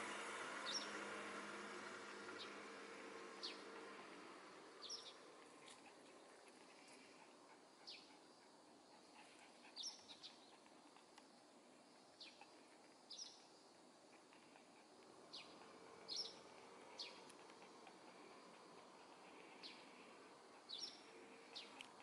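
Eurasian tree sparrows chirping: short, faint single chirps, with a pause of a second or two between most of them. A vehicle's noise fades away in the first few seconds.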